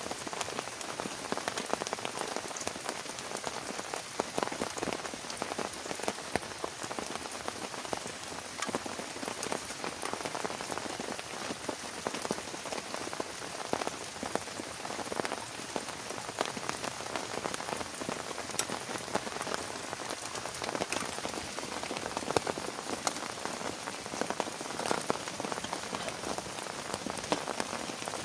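Heavy rain falling steadily, with a dense run of individual drops striking a surface close by.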